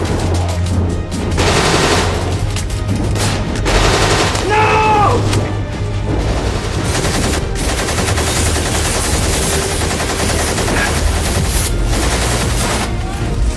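Rapid rifle gunfire, many shots in quick succession, as in a film battle soundtrack, over background music with a low steady hum.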